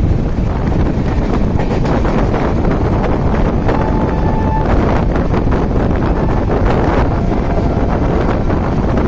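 Moving express train at speed: wind buffeting the microphone over the steady rumble and rapid clicking rattle of the wheels on the track. A brief, faint steady tone sounds about four seconds in.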